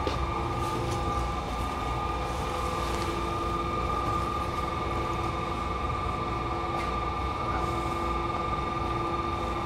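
Steady machine drone of wash-bay equipment, a constant hum made of several steady tones over a low rumble, with no water spraying.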